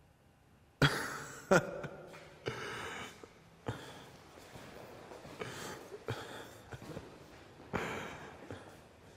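A man's breathy gasps and hard exhalations in reaction to seeing his portrait, coming in several bursts. Two sharp, loud ones are about a second in, and fainter ones follow through the rest.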